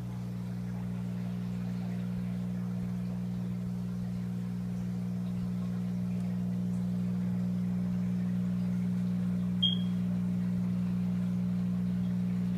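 Steady electric hum of running aquarium equipment, low and even. A single brief high blip comes near the end.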